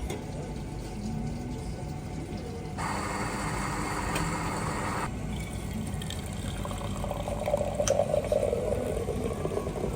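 Self-service coffee machine dispensing coffee into a cup: a couple of seconds of machine hiss about three seconds in, then liquid pouring near the end, over a steady low hum.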